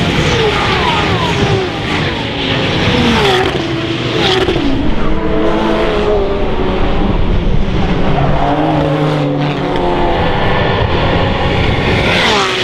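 Several GT3 race cars driving past at speed one after another, their engine notes overlapping and falling in pitch as each one goes by.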